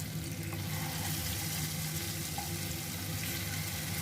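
Marinated fish pieces shallow-frying in coconut oil in a flat frying pan: a steady sizzle with a few faint ticks.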